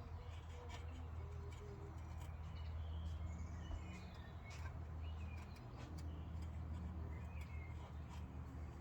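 Faint birdsong: scattered short chirps over a steady low rumble, with a few light clicks.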